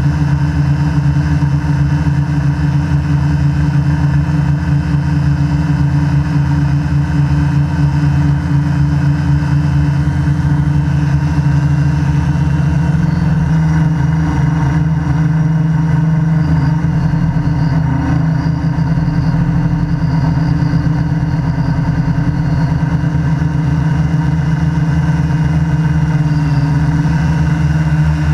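QAV500 quadcopter's four electric motors and propellers running in flight, heard from the GoPro mounted on its frame: a loud, steady buzzing hum that shifts a little in pitch as the throttle changes, around the middle and near the end.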